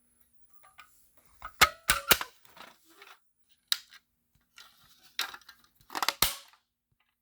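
Sharp plastic and metal clicks and clacks from handling the fire alarm test rig as it is reset. A handful of them come in bunches, about two seconds in and again near six seconds.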